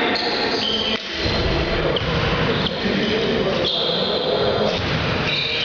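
Echoing sports-hall sound of an indoor volleyball game: the ball being hit and bouncing, players' voices, and several short high squeaks.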